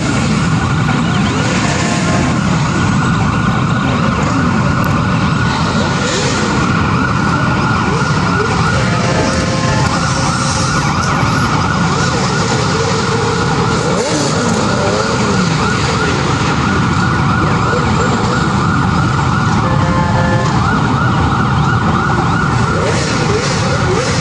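Many sport motorcycle engines running and revving together, their pitch rising and falling over and over. Three short tones sound over them, about two, ten and twenty seconds in.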